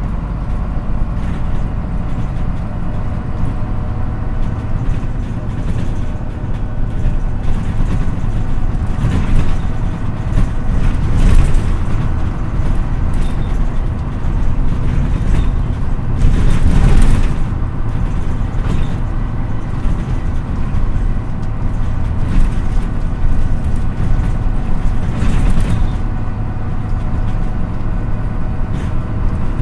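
MAN NÜ 313 low-floor city bus heard from inside while driving: steady engine drone and road noise. Several brief louder noisy surges come through, the longest about two-thirds of the way in.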